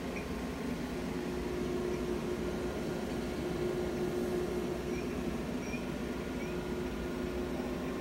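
Steady machine hum with hiss. A few faint, short, high chirps come over it in the second half.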